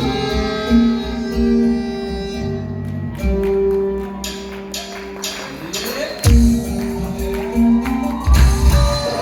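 Ney-anban, the southern Iranian bagpipe, playing an unbroken reedy melody of held notes, with hand percussion striking along with it; about six seconds in the melody slides up in pitch.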